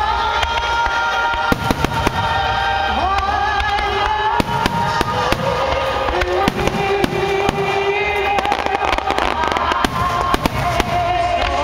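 Fireworks display: many shells bursting and crackling in quick, irregular succession, over music with long held notes.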